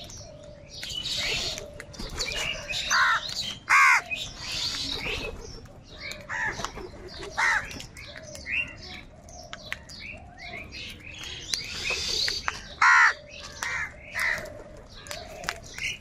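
A flock of house crows cawing again and again in short, hoarse calls that overlap one another. The loudest caws come about four seconds in and again near thirteen seconds.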